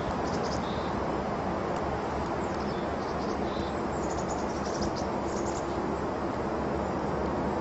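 Steady outdoor noise with short, high bird chirps here and there.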